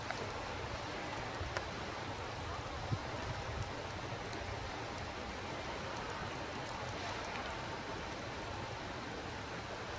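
Steady, even outdoor hiss during a heavy snowfall, with two faint taps about one and a half and three seconds in.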